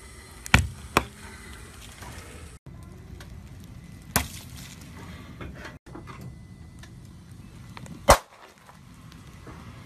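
Car tyre rolling slowly over objects on pavement and crushing them. There are two sharp cracks about half a second in, a sharp burst about four seconds in as a water-filled object under the tyre bursts and splashes, and a loud pop about eight seconds in as the tyre bears down on a row of small white objects.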